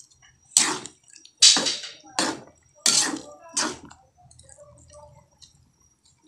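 Metal spoon stirring chunks of breadfruit through simmering coconut milk in a pan: a run of short stirring strokes about one every 0.7 s, dying down after about four seconds.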